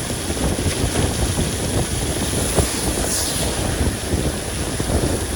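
Wind buffeting the microphone inside a moving car: a steady, rough rumble.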